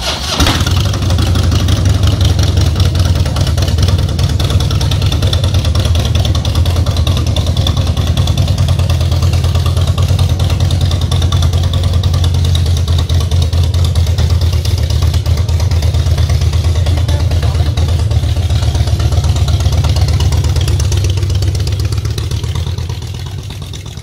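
Harley-Davidson motorcycle's V-twin engine starting abruptly and running with a steady low rumble, then fading over the last few seconds as the bike pulls away.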